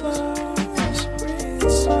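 Background music: an instrumental stretch of a song with held chords, a low bass line and a steady beat of light percussion ticks.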